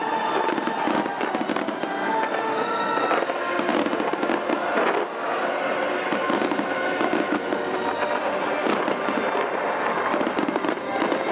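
A fireworks display going off without a pause: dense crackling and popping from many bursts at once.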